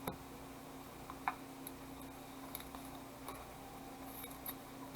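Trading cards being handled and flipped through by hand: a few faint, short clicks and snaps spread over the seconds, over a low steady hum.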